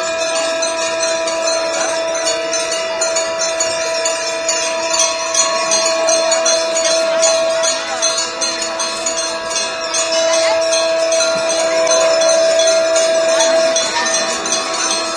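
Hand bells of the Ganga aarti ringing continuously, with rapid, even strokes over a steady ringing tone.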